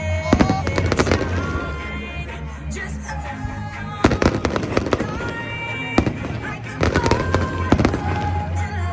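Fireworks bursting in a quick string of sharp bangs and crackles, heaviest near the start and again about four, six and seven to eight seconds in, over music with a steady bass line.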